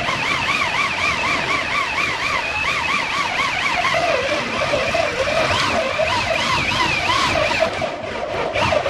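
Siren-like warbling tones, several overlapping, each rising and falling rapidly several times a second; a lower warble joins about halfway through.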